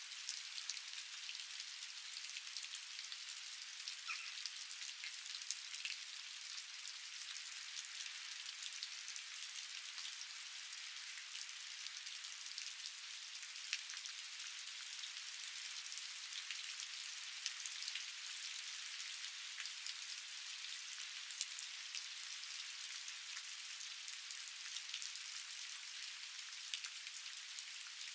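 Steady rain falling, an even hiss studded with many small ticks of individual drops striking surfaces.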